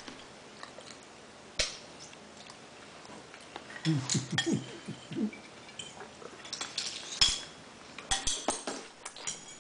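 Metal cutlery clinking against dishes at a meal table: one sharp clink under two seconds in, then a cluster of clinks from about seven seconds on.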